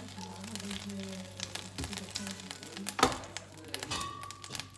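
Light crackling of oil heating in a nonstick frying pan under faint background music with a voice, then a sharp click about three seconds in as the pan's detachable handle is unclipped. A steady high beep sounds near the end.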